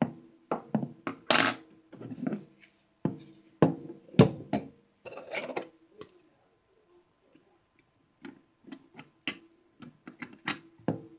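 Clicks, knocks and small metallic clinks of a Norinco NP34 pistol's frame, grip panels and small screws being handled while the grips are fitted back on. They come in quick irregular clusters with a short pause about halfway, and some clinks ring briefly.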